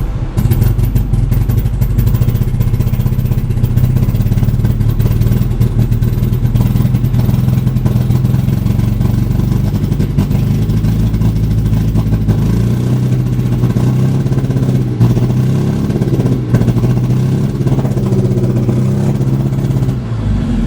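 Toyota MR2 engine idling roughly: a steady low running note, its pitch wavering a little, broken by frequent uneven knocks. The rough idle is the fault being shown.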